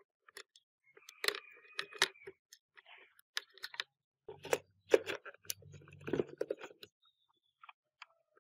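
Scattered sharp clicks and taps of small hard laptop parts being handled and worked on, with a brief low hum twice in the middle.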